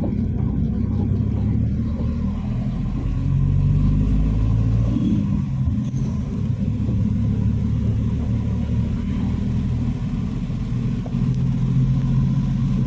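Inside a moving car on a wet highway: the steady low rumble of the engine and tyres, with the engine note swelling a little twice. Heavy rain is hitting the car body.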